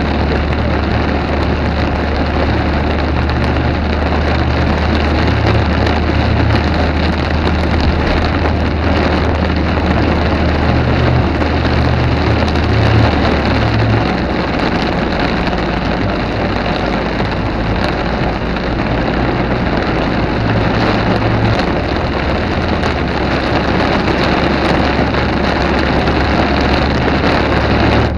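Heavy rain falling steadily in a thunderstorm, a dense even hiss with a low rumble underneath.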